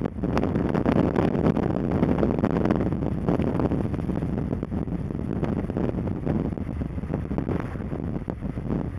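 Steady road and engine noise of a car driving, heard from inside the car, with wind buffeting the microphone.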